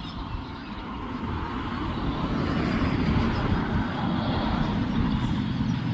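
A passing motor vehicle: a steady rumble that grows louder over the first few seconds, then holds.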